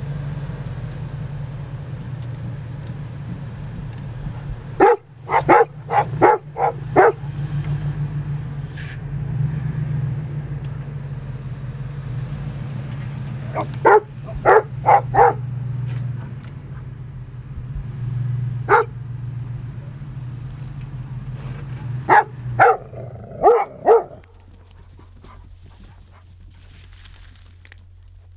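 A dog barks in short volleys of several sharp barks, four times over, above a pickup truck's engine idling steadily. The engine cuts off near the end.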